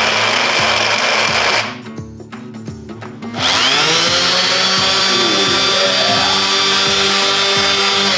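Handheld electric random orbit sanders running free in the air, one after the other. The first cuts off abruptly about a second and a half in. A couple of seconds later the other switches on, its whine rising as it spins up and then settling into a steady high whine.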